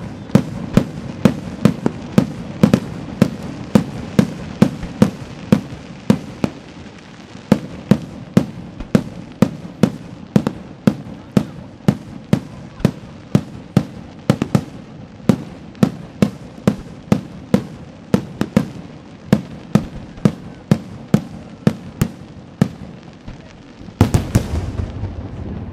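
Fireworks display: aerial shells going off in a steady, rapid string of sharp bangs, about two a second. Near the end this gives way to a denser, louder rumble of overlapping bursts.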